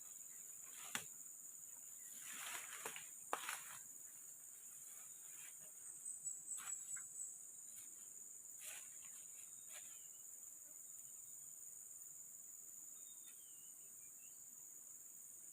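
Steady high-pitched drone of forest insects, with a few sharp clicks and short rustles in the first few seconds and a quick run of high chirps about six seconds in.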